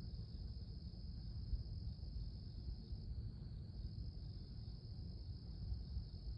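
Crickets chirping in a steady, continuous high-pitched night chorus, over a low noisy rumble.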